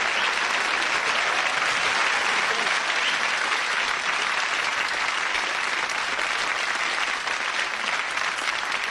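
Studio audience applauding steadily, a dense patter of many hands clapping that eases off slightly near the end.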